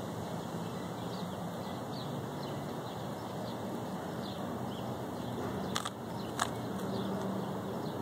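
Steady outdoor background with a low hum and faint, scattered bird chirps, broken by two sharp clicks a little past the middle, from the plastic Rubik's Cube being twisted.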